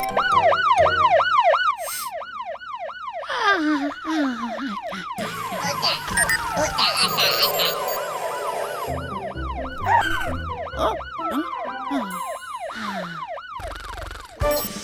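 Cartoon siren sound effect: a fast yelping wail sweeping up and down about five times a second. It comes in twice, at the start and again from about nine seconds, over light background music and other sound effects.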